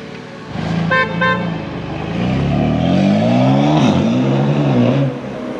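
Two quick car-horn toots, then a BMW M3 pulling away hard, its engine note climbing, dipping sharply once near four seconds in and climbing again before dropping away.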